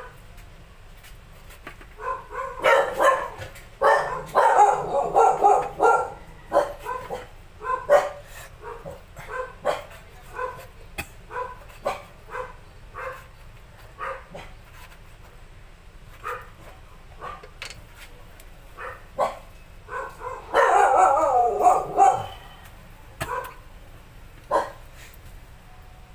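A dog barking over and over: two loud flurries of barks, one a few seconds in and one near the end, with a steady run of single barks between them, about one every three-quarters of a second. Faint knife taps on a plastic cutting board sound under the barking as fish is cut into cubes.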